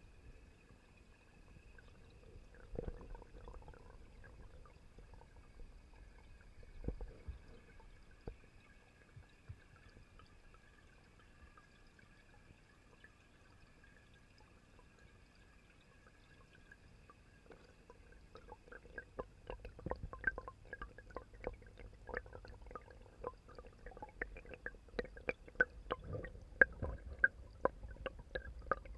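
Underwater sound picked up by a camera submerged in a pond: a faint steady high whine, a couple of soft knocks early on, then irregular sharp clicks and taps that come thicker and louder over the last ten seconds.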